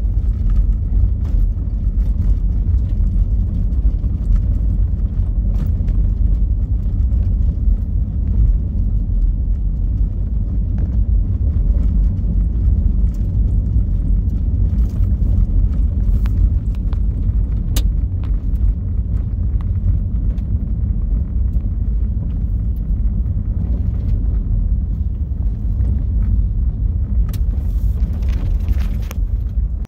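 Vehicle driving on a gravel dirt road, heard from inside the cab: a steady low rumble of engine and tyres on gravel, with scattered small clicks and rattles and a brief hiss near the end.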